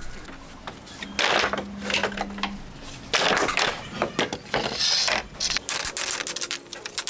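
Weathered pallet boards scraping and clattering as they are handled. Near the end comes a quick run of hammer knocks on the pallet wood as it is broken apart.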